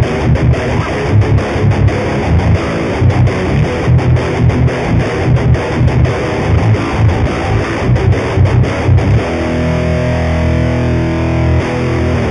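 Seven-string electric guitar (Lavish Drogo-7) playing a fast, rhythmic low riff, then a chord left ringing for the last few seconds.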